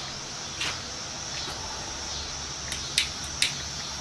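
Steady high-pitched chirring of crickets or similar insects, with a few sharp clicks, the loudest two close together about three seconds in.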